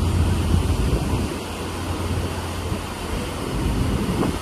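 Steady wind noise and a low rumble on the open upper deck of a ferry under way, easing a little about a second in.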